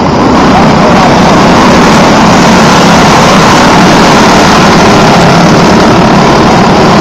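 Engines of a pack of dirt-track racing karts running at full speed as they go by close and through the turn, a loud, steady, dense engine noise.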